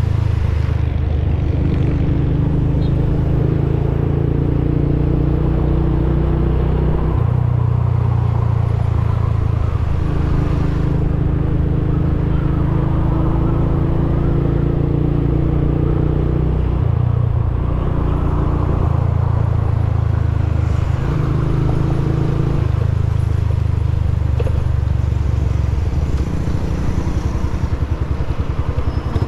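Motorcycle engine running under way, its pitch stepping up and down several times as the rider changes speed or gear. Near the end the revs drop low enough that the separate firing beats can be heard.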